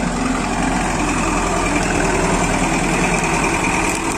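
Engine of a large Starbus passenger bus running steadily as the bus moves slowly past at close range.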